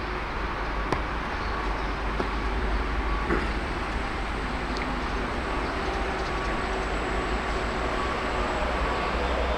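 Steady low rumble and hiss of a vehicle running, with a few faint clicks.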